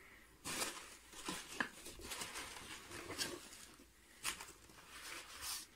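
Foam packing peanuts rustling in a cardboard box as a hand digs through them and lifts an object out, in a string of uneven rustles with a few light clicks and knocks.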